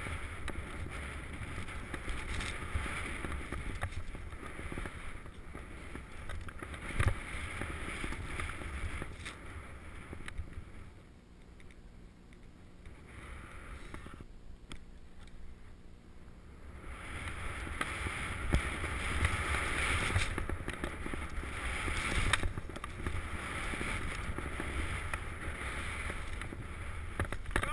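Wind buffeting a body-worn action camera and skis hissing through powder snow on a downhill run. It goes quieter for several seconds in the middle, then picks up again, with one sharp knock about seven seconds in.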